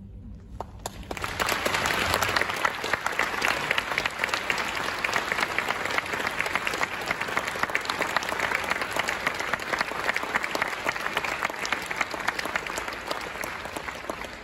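Audience applauding: a few scattered claps about half a second in, then full, steady applause.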